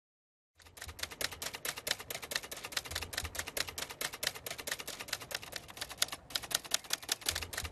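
Typewriter keys striking rapidly in a steady stream of sharp clacks, starting about half a second in, with a short pause a little after six seconds.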